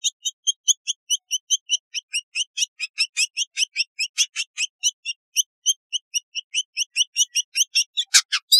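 Village indigobird singing: a fast run of short, high chirps, about five a second, with a few louder, wider-ranging notes near the end.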